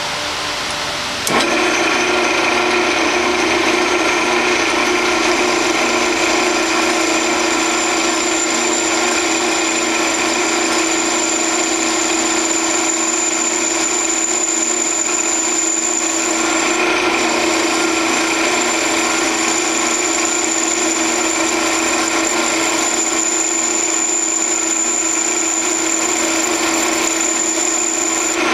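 Grizzly G0602 10x22 metal lathe running with a steady whine of several held tones while a cut is turned on aluminium stock. The sound steps up in level about a second in and then holds steady.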